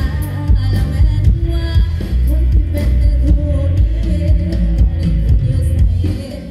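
Live band music played loud through the stage PA: a woman singing into a microphone over drums and a heavy bass line, with the sound dipping briefly near the end.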